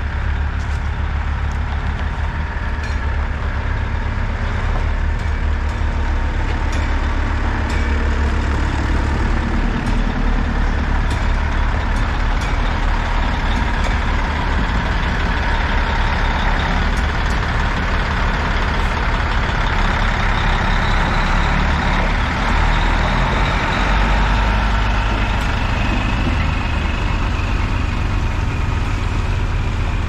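Diesel semi truck running steadily at low speed as it pulls a lowboy trailer past, with a strong low engine hum.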